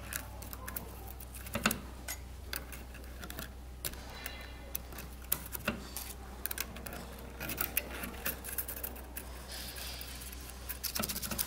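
Light metallic clicks and ticks of piston rings being fitted onto a Mercedes-Benz OM447 diesel piston, over a low steady hum.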